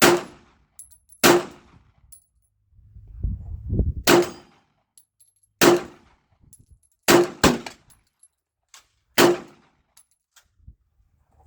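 Glock 41 .45 ACP pistol being fired, seven shots at uneven intervals over about nine seconds, two of them in quick succession about seven seconds in.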